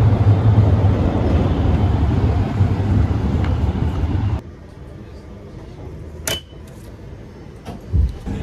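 Steady low rumble of a tram at a city tram stop. About four seconds in it cuts off abruptly to the quieter inside of a Tatra T4D tram car, where there is a single sharp click about two seconds later and a short dull thump near the end.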